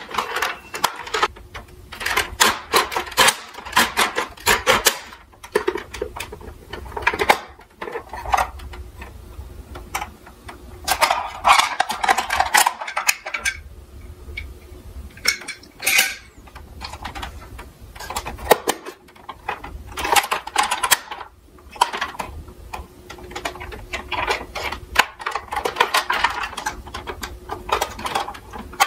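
Plastic toy fire engine and small diecast cars being handled in a cardboard box: irregular clicks, knocks and clatter of plastic and metal, with rustling of the box and its packing.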